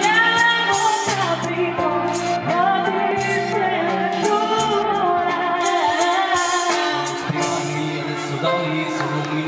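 A woman and a man singing an Italian pop duet into microphones over amplified backing music with a steady bass line, holding long notes with vibrato.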